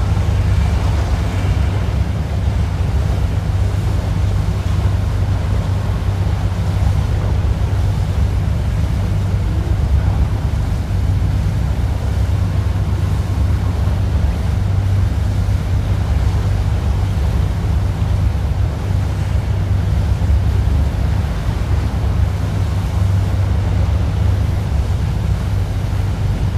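A boat's engine running with a steady low drone, under the rush of water and wind.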